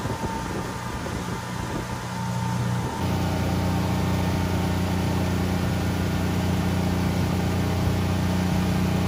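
Boat engine running steadily, a low drone of even tones. About three seconds in the sound changes abruptly and gets louder, then holds steady.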